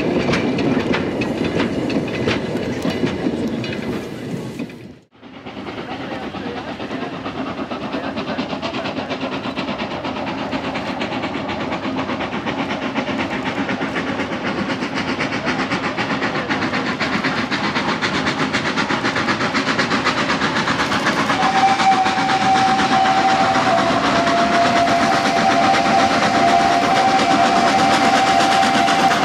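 Narrow-gauge freight train running, its wheels and wagons clattering steadily over the rails. The sound briefly drops out about five seconds in. A long, steady high tone joins in about three-quarters of the way through and holds, dipping slightly in pitch twice.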